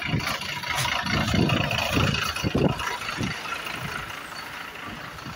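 City bus engine running as the bus pulls away from the stop alongside, the noise swelling and then fading after about three seconds, with irregular low thumps on the microphone.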